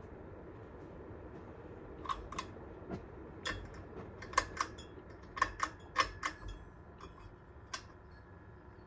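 A series of sharp metallic clicks and clinks, about a dozen, starting about two seconds in and thickest in the middle, over a steady low hum: ceiling fan hardware being handled and worked on.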